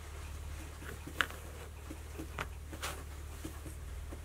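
Cats' paws and claws tapping and scratching on a cardboard box as they play, a few scattered light taps and scrapes, the sharpest about a second in, over a steady low hum.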